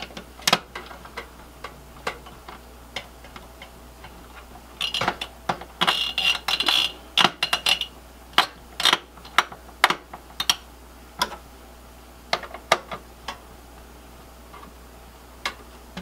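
Screwdriver tightening the spring-loaded screws of a server CPU heatsink: irregular clicks and small metallic taps, with a brief squeak about six seconds in.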